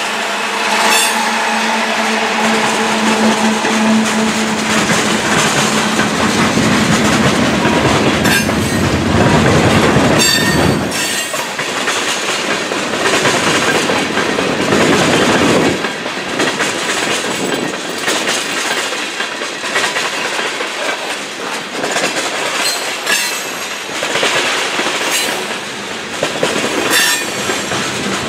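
Freight train rolling past at close range: the drone of its trailing diesel locomotive fades over the first several seconds, leaving the steady rumble and clickety-clack of covered hoppers and tank cars rolling over the rail joints, with a few short wheel squeals.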